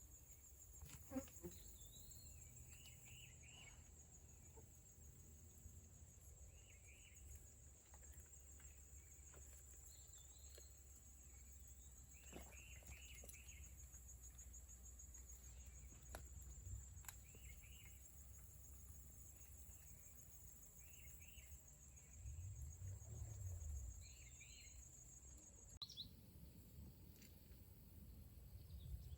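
Faint outdoor insect and bird sounds: a steady high, fast insect trill that stops near the end, with a bird's short groups of chirps every few seconds.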